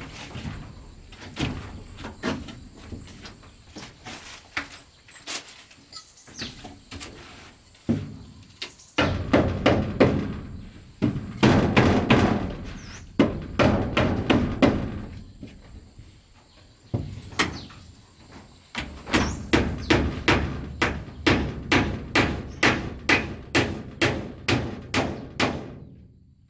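Repeated knocks of a hand tool striking wood, irregular at first, with denser rough stretches in the middle. From about two-thirds of the way in they become an even run of about three strikes a second.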